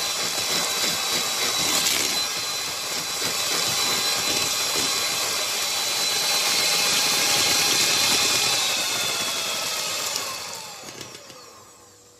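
Electric hand mixer running at speed, its beaters whipping a thin egg-and-sugar batter as melted fat is beaten in, with a steady high motor whine. Near the end the mixer is switched off and the motor winds down, its whine sliding down in pitch as the sound fades out.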